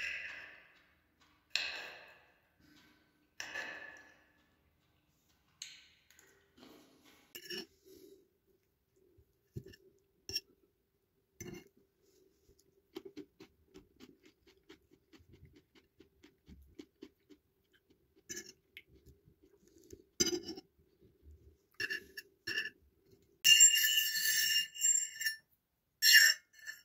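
Eating up close: crunchy bites of fresh cucumber slices at the start, then quieter chewing with a steel fork clinking on a ceramic plate. Near the end the fork scrapes across the plate with a loud, squeaky scrape lasting about two seconds, then a few sharp clinks.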